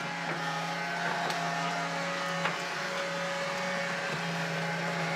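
Steady mechanical hum of a running household appliance motor, with two light clicks.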